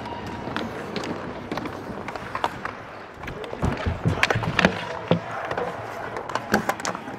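Live ice hockey play: sharp clacks and knocks of sticks, puck and skates over the rink's background noise. The knocks come thickest from about three and a half seconds in, as players battle for the puck against the boards.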